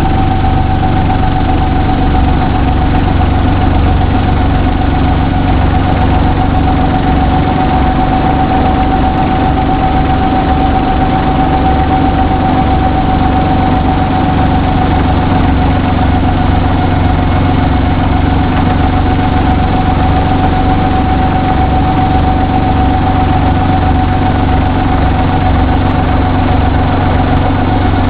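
Brantly B-2 helicopter's piston engine and rotor running steadily as it moves low along the runway, heard from the open cockpit: a constant low hum with a steady whine that drifts slightly lower.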